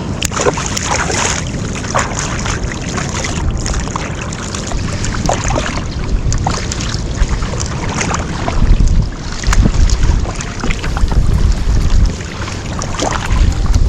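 Water splashing and sloshing around a fishing kayak, with many short splashes, and wind buffeting the microphone. The wind gusts are heaviest from about 8 to 12 seconds in.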